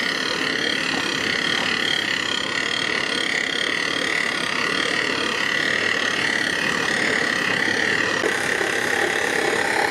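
Heavy construction machinery running steadily: a continuous mechanical noise with a steady high whine over it.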